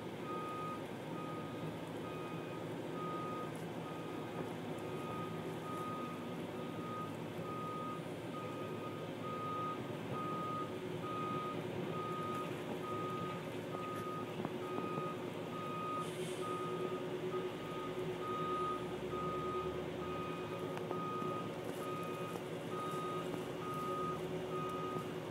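Back-up alarm on a rail track maintenance machine beeping steadily, a little over once a second, over the machine's engine running.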